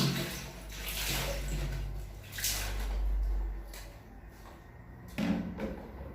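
Water sloshing and splashing in short surges, with a bump about five seconds in.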